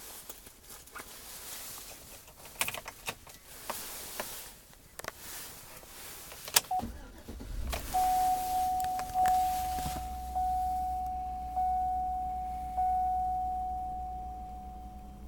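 Clicks and rustles of handling inside a 2009 Chevrolet Avalanche cab, then a sharp click after which the engine starts and settles into a low idle hum. A dashboard warning chime rings as one sustained tone, re-struck about every second and fading after each strike.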